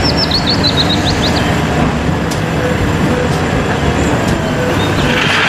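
Volvo FH 540 tipper truck's diesel engine running steadily as the loaded bed tips up, with a few bird chirps in the first second or so. About five seconds in, a rushing hiss joins as the gravel load begins to slide out of the bed.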